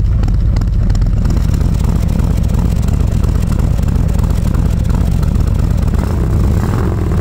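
Trike engine running at a steady idle through a Jekill & Hyde aftermarket exhaust, a loud, even, low-pitched exhaust note from the chrome tailpipes.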